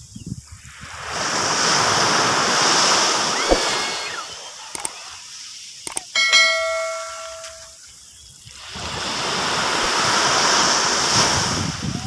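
Small waves washing up a sandy beach and drawing back, in two long swells of surf noise with a lull between them. About six seconds in, a mouse click and then a ringing chime from a subscribe-button animation.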